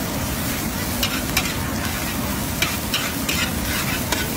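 Egg and chopped vegetables sizzling in a large wok, with a metal spatula scraping and striking the pan several times as they are stir-fried.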